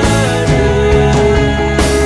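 Background music with a steady beat and sustained guitar-like tones.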